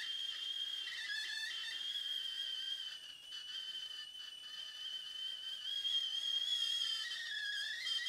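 Glass stovetop kettle whistling at the boil: a steady high whistle, with a lower second tone that drops in and out. It dips briefly about three seconds in and grows louder over the second half.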